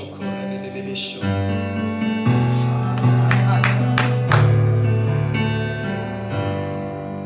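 Slow worship music on an electronic keyboard: sustained chords that change every second or two, with a few sharp accents a little past the middle.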